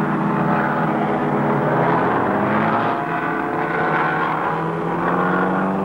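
Formula Junior single-seater racing cars' engines running at high revs as the cars go by: a steady engine drone whose pitch shifts a couple of times.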